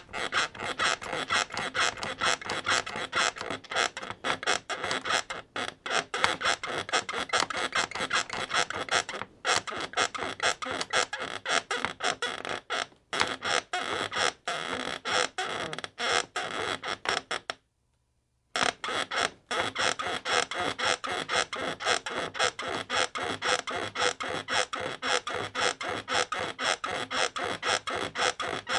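Bed frame creaking and squeaking in a fast, steady rhythm, as if rocked or bounced over and over. It cuts out completely for under a second about two-thirds of the way through, then carries on at the same pace.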